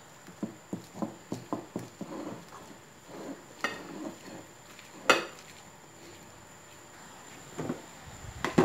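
Metal fork chopping boiled eggs in a ceramic bowl: quick clicks of the tines striking the bowl, about three or four a second at first, one sharp loud clink about five seconds in, then a quieter stretch and a few last clicks.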